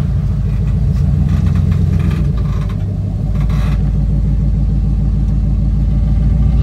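Off-road vehicle engine running steadily, with two brief noises over it, about one and a half and three and a half seconds in.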